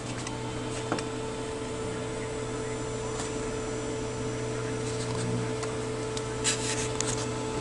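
Steady low hum of powered electronic bench equipment, with a few light handling clicks as the camera is moved, a short cluster of them about six and a half seconds in.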